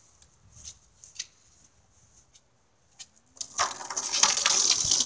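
Water gun's jet spraying and spattering against a stone wall, a loud hissing splatter that starts about three and a half seconds in after a few faint taps.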